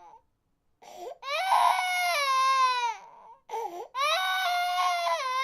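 Infant crying: two long, high wails, each falling slightly in pitch, with a short catch of breath before each one. The first begins about a second in and the second about four seconds in.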